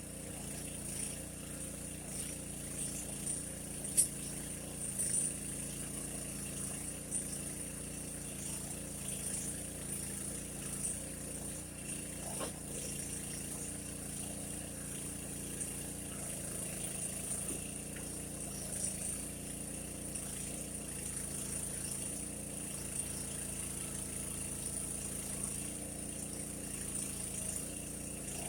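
Mini backhoe's small engine running steadily, with a few brief clicks and knocks over it.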